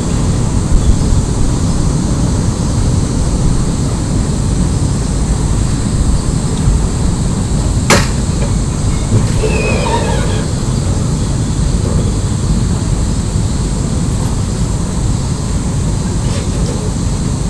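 Steady low rumble with a single sharp click about eight seconds in and faint squeaky scraping just after it: an upstairs window of a neighbouring house being opened.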